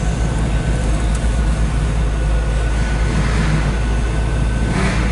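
Steady low rumble with a hiss over it inside the cabin of a running 1996 Chevrolet Corvette.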